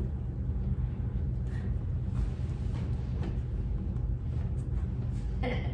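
Steady low background rumble, with a few faint light taps.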